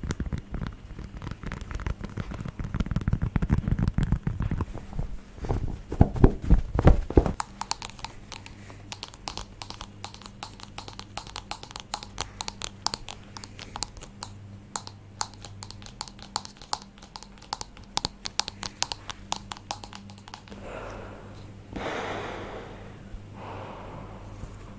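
ASMR tapping and crinkling triggers close to the microphone: dense crackly handling with a few heavier knocks, then a long run of fast, light, crisp taps. Near the end come a few soft whooshing sounds.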